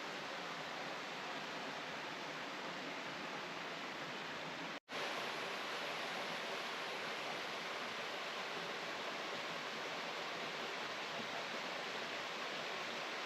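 Steady hiss of heavy rain, with a momentary break about five seconds in.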